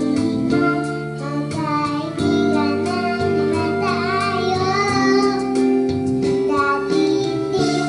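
A young girl singing into a handheld microphone over backing music with a steady beat.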